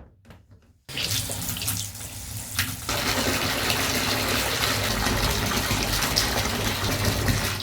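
Bathtub tap running, water pouring into the tub. It comes on suddenly about a second in, after a few light knocks, and stops near the end.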